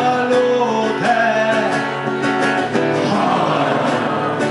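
A man singing a Polish song to acoustic guitar. He holds the sung word for a moment, and the guitar carries on alone about three seconds in.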